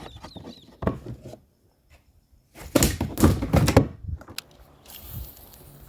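Hollow thuds and knocks on a kayak, with a dense run of them about three seconds in and a sharp click soon after, as a caught snook is handled and put away on board.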